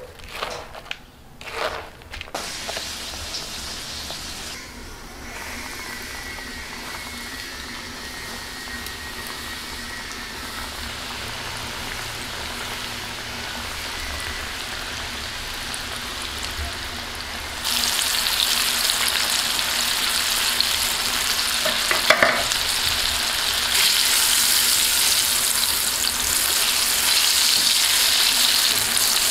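A few short scrapes of chicken pieces being tossed in dry flour in a bowl, then flour-coated chicken bites deep-frying in hot oil: a steady sizzle that gets louder in steps in the second half, with one sharp knock partway through.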